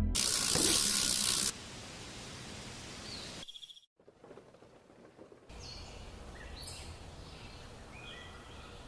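Outdoor ambience made of several short cuts. A loud rushing noise runs for about the first second and a half, then drops to a quiet background hiss. Birds chirp briefly several times in the second half.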